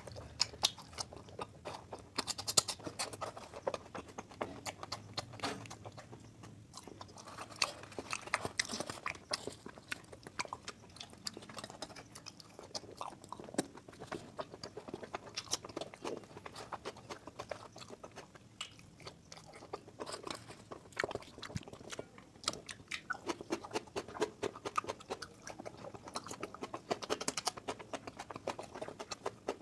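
Close-miked chewing and biting of a person eating oily mutton fat curry with luchi and salad: many small clicks and smacks of the mouth, with occasional crunchier bites.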